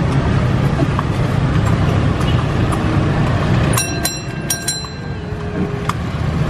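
Busy street traffic, with motorbikes and cars running in a steady low rumble. About four seconds in, a bell rings a few quick strokes.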